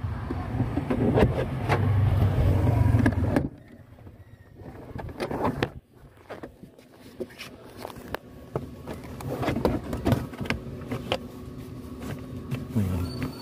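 A blower (heat gun) runs steadily with a low motor hum and switches off after about three and a half seconds. Then come scattered knocks and scrapes of a stiff rubbery TPE floor mat being pushed and settled into a car footwell.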